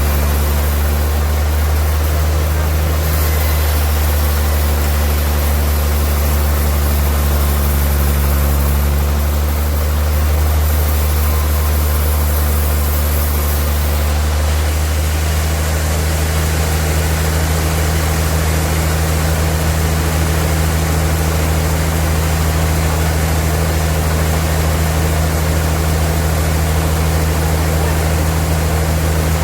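Sawmill machinery running steadily with a deep, constant hum. A higher hiss rises and falls a few times in the first half.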